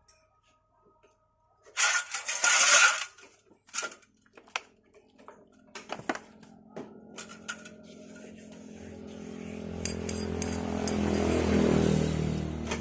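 Metal scooter drive parts and tools clinking and knocking as they are handled. A short, loud hissing rush comes about two seconds in, and a steady hum swells up over the last few seconds.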